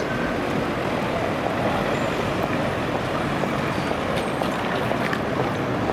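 Articulated city tram running past on street track amid idling and moving road traffic, a steady, even rumble with no distinct events.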